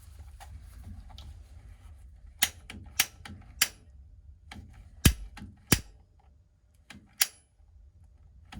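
Piezo spark igniter on a gas water heater's pilot assembly clicking about six times, sharp and unevenly spaced, as the pilot is being lit.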